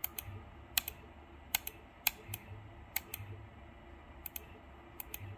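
Computer keyboard key tapped repeatedly, about seven quick presses, each a short double click of press and release, over a faint low hum. The taps are jogging the CNC router's Z axis down in small steps.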